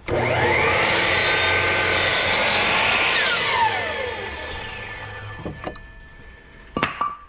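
Kobalt sliding miter saw started up and its blade pulled down through a wooden board, cutting for about three seconds; the trigger is then released and the blade winds down with a falling whine. A few sharp knocks come near the end.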